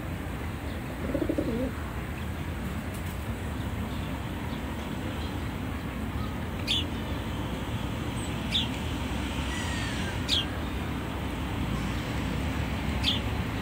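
Outdoor birdsong. A dove coos once about a second in, then a bird gives four short, high chirps spaced a couple of seconds apart, over steady low background noise.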